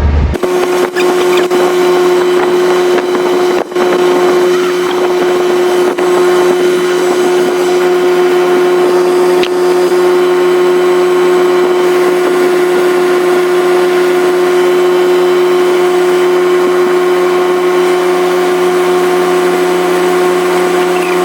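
A motor running with a steady, high whine that holds one pitch, then starts to drop in pitch as it slows right at the end.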